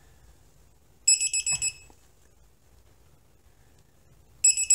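Craftsman 1/2-inch drive digital torque wrench beeping as it is pulled on a wheel lug bolt. A short run of rapid high-pitched beeps comes about a second in, and faster, denser beeping starts near the end. The beeping is the wrench's audible warning that it is nearing and reaching the set torque.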